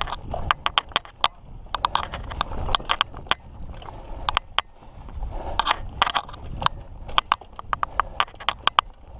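Mountain bike rolling over a rocky trail: tyres crunching over rock and gravel, with many sharp, irregular clicks and knocks of the bike rattling over the rocks, over a low rumble.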